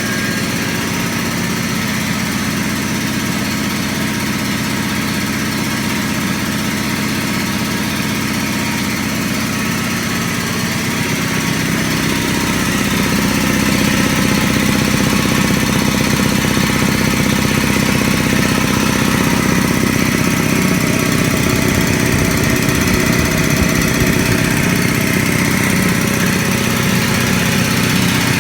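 Quincy QT-5 two-stage air compressor, with its 5 hp electric motor, running steadily as it pumps up its 80-gallon tank. It gets a little louder about twelve seconds in.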